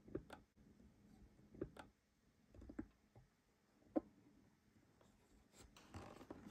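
Near silence in a small room, broken by a few faint, irregular knocks and clicks, the sharpest about four seconds in, with a brief rustle near the end.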